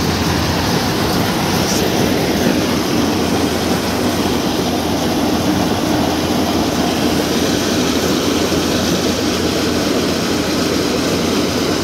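Combine harvester running steadily at full working speed while its unloading auger pours threshed paddy into a trolley.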